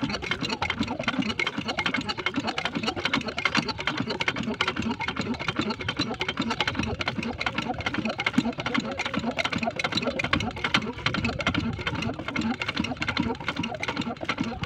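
Small engine driving a water pump, running steadily with a fast, even clatter.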